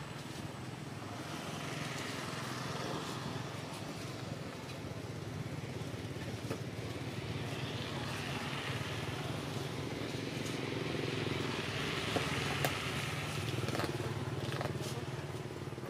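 A motor engine running steadily with a low hum, slowly growing louder, with a few faint clicks near the end.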